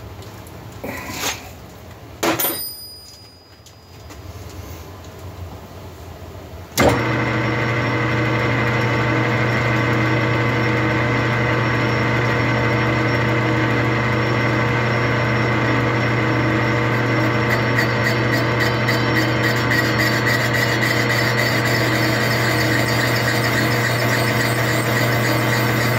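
A few short metal clanks at the lathe's tool post, then about seven seconds in the metal lathe switches on and runs steadily with a hum and several whining gear tones. Past halfway a fast, even ticking joins as the cutting tool takes what should be the last cut across the squish band of the 372XP cylinder.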